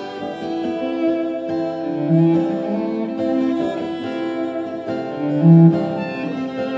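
Acoustic guitar strummed steadily under a bowed cello playing long held notes, with a louder low cello note swelling about two seconds in and again about five and a half seconds in.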